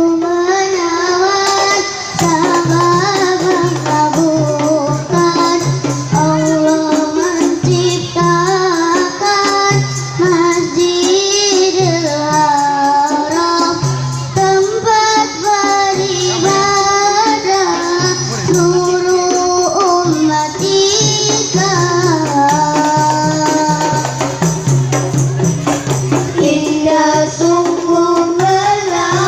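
Children singing a melody together through microphones and a PA system, accompanied by a steady rhythm on rebana frame drums.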